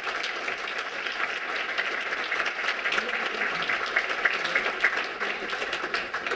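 Audience applauding: many hands clapping steadily, thinning out near the end.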